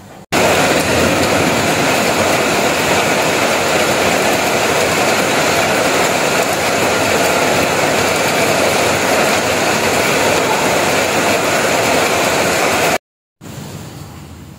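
Heavy rain falling on a corrugated metal roof: a loud, steady hiss. It cuts off abruptly near the end, giving way to the quieter sizzle of cassava frying in hot oil in a wok.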